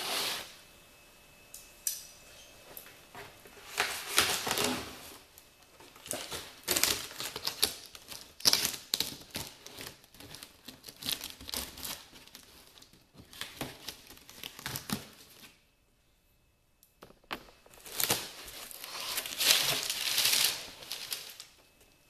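A taped cardboard shipping box being opened by hand: packing tape ripping and cardboard crackling and scraping in irregular bursts, with a short lull about three-quarters of the way through.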